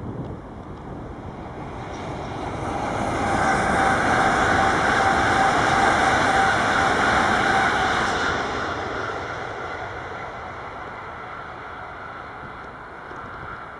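A train passing by on the tracks, its rumble building, at its loudest with a steady whine for a few seconds, then fading away.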